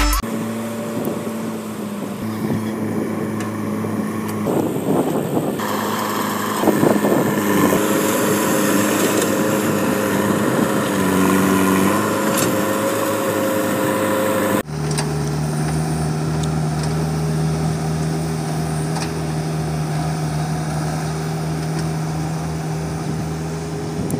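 Diesel lorry engine running as an Ashok Leyland truck drives over a dirt field, its pitch rising and falling as it pulls. About two-thirds of the way through it cuts abruptly to the steady diesel engine of a JCB 3DX backhoe loader working at a soil pile beside a lorry.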